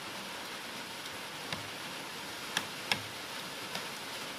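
Spoon and fork clicking against a plate four times over a steady, even hiss.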